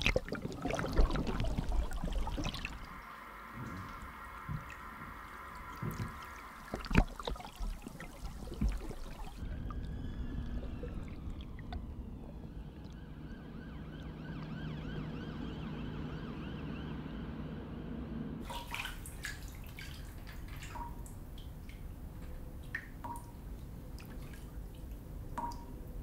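Film sound design built from water: pouring and dripping, layered with steady tones in the first part. For several seconds in the middle the sound turns muffled, with a low hum and sliding pitches, before scattered drips return near the end.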